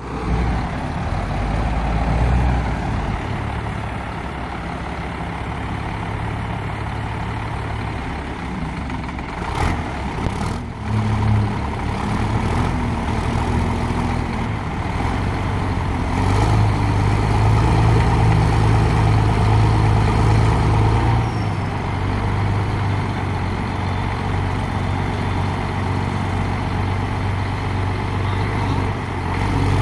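Diesel engines of two Caterpillar wheel loaders running and working under load as they lift an old crawler tractor between them. The engine note rises and falls and is heaviest from about 16 to 21 seconds in, with a few short knocks around 10 seconds.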